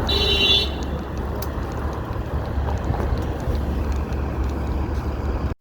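Strong wind buffeting the microphone, a steady low rumble, with a brief high-pitched squeal in the first half-second; it cuts off suddenly just before the end.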